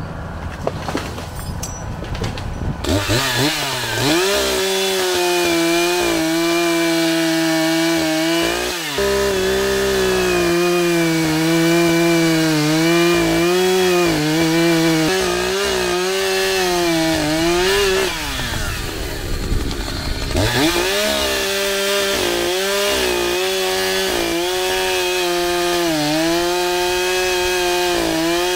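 Echo CS-590 two-stroke chainsaw revving up after about three seconds and running at high throttle through a cut in a tree trunk, its pitch sagging and recovering as the chain bogs in the wood. The saw note drops out briefly about two-thirds of the way through, then comes back at full throttle.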